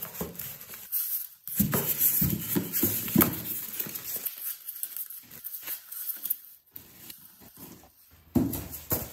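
Polystyrene foam packing and a plastic-wrapped projector rubbing, squeaking and scraping against a cardboard box as they are lifted out, with plastic crinkling. The handling is busiest from about one and a half to three and a half seconds in, then scattered small knocks, and a louder bump near the end.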